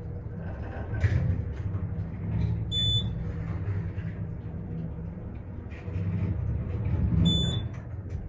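Elevator drive motor humming steadily during a ride, with two short high electronic beeps about four seconds apart, like floor-passing or arrival signals.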